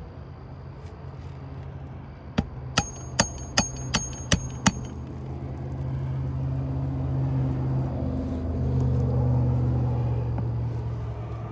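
Seven quick hammer strikes, a ringing metallic note on several, from a 16-ounce Craftsman claw hammer driving a nail into an asphalt shingle. Then a motor vehicle's engine swells and fades as it passes, the loudest sound.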